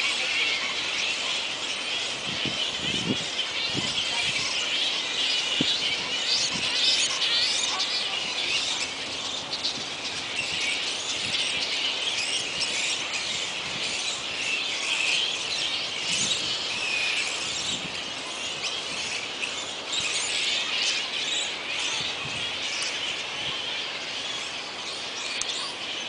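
Roosting colony of flying foxes (fruit bats) calling together: a dense, continuous chorus of overlapping high-pitched squeals and chattering chirps.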